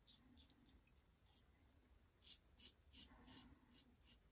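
Razor blade scraping through lathered stubble on the upper lip: about ten short, faint strokes.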